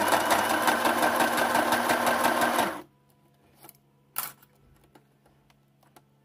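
Electric sewing machine stitching fabric bias binding onto clear plastic: a run of rapid, even needle strokes for about three seconds that stops abruptly. A single sharp click follows about a second later.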